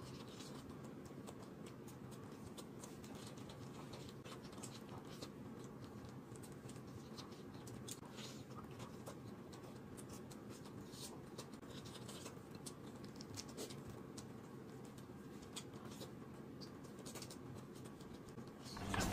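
Faint sounds of eating braised chicken by hand: soft chewing, meat being torn, and small scattered clicks and rustles over a low steady hum.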